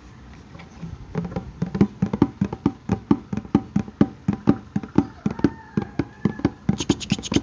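Rapid hollow tapping on a bucket, starting about a second in and going on at about four to five taps a second.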